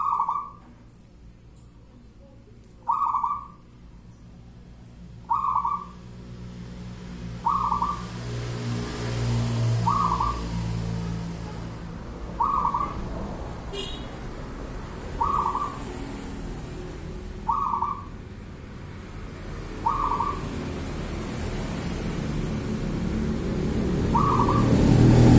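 Zebra dove (perkutut) cooing its song, about ten short multi-note coos repeated every two and a half seconds or so. A low background rumble rises near the end.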